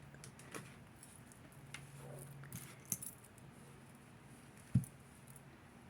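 Faint, scattered clicks and light metallic clinks of costume jewelry being handled, with one sharper knock a little before the end.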